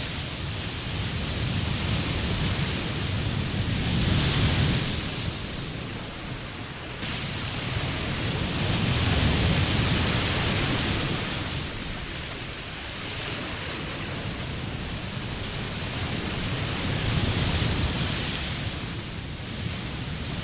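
Sea surf breaking on a sand beach: a steady wash of waves that swells and eases, with bigger breakers about 4, 9 and 17 seconds in.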